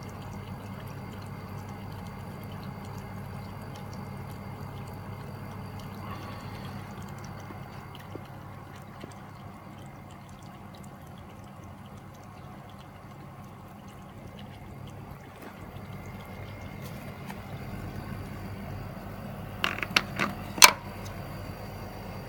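Water pouring steadily through a pool heat pump's circulation, with a low steady running noise underneath. About 20 seconds in, three or four sharp clicks.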